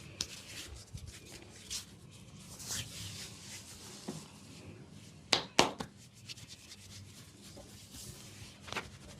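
Hands rubbing and kneading oiled skin during a massage, with two sharp snaps close together about five and a half seconds in and a smaller one near the end.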